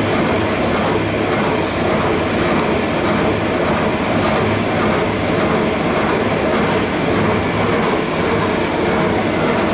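Mobile gold and diamond washing plant running under test, its duplex jig and washing trommel making a steady, rhythmic mechanical clatter over a low, pulsing hum.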